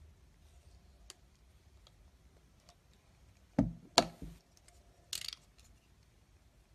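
A snap-off utility knife blade working a bar of soap: faint scattered ticks, then a couple of knocks and a sharp click about three and a half seconds in, and a short scrape of the blade on the soap about a second later.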